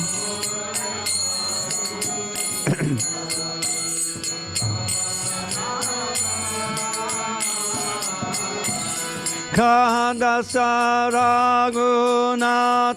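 Kirtan-style devotional singing: a group of voices sings together over a steady harmonium drone, with hand cymbals (kartals) ticking in rhythm. About ten seconds in, a single lead voice comes in loudly with the next line.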